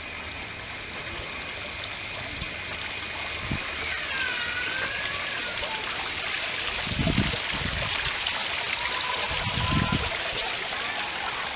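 Water trickling and splashing steadily, with a short gliding whistle about four seconds in.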